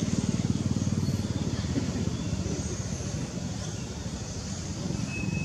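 An engine runs steadily, a low pulsing drone. A brief high tone sounds near the end.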